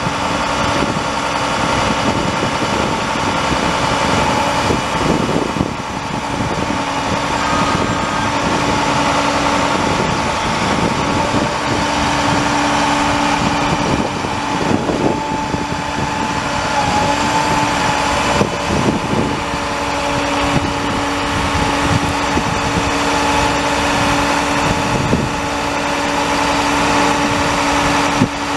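A 2009 International 7500 truck's diesel engine runs steadily. It carries a steady whine that shifts in pitch about halfway through.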